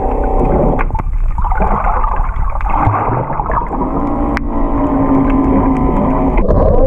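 Muffled underwater sound from a camera submerged beneath a boat's hull: a continuous low rumble of water with steady droning tones, which grow stronger about halfway through.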